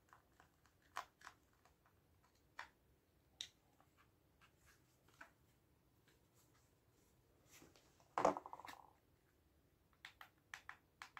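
Faint scattered clicks and taps of a screwdriver and plastic casing as screws are tightened to close a wireless speaker, with one short rattling burst about eight seconds in.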